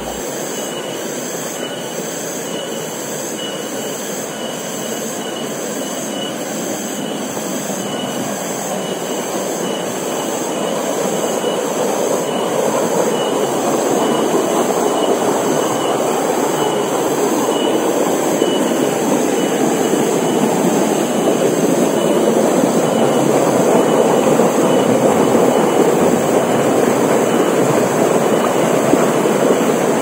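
Steady rush of a shallow rocky stream cascading down a chute between boulders, gradually getting louder towards the end.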